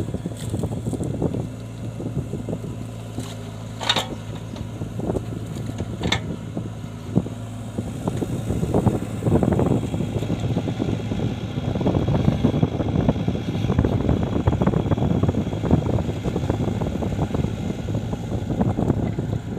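Mini excavator's diesel engine running steadily while it digs in waterlogged soil, with irregular clatter and scraping that swells through the middle and two sharp clicks early on.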